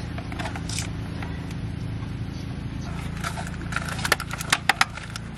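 Scattered metallic clicks and taps of tools and parts being handled in a truck's engine bay during intake reassembly. The taps come closer together from about halfway through, over a steady low hum.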